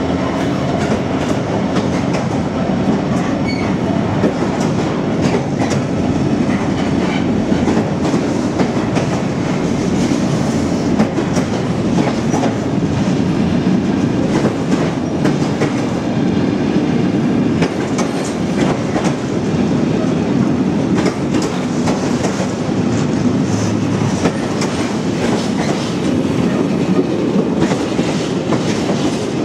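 A container freight train passing. The Class 66 diesel locomotive's engine hums at first, then the loaded container wagons rumble and clack steadily over the rail joints.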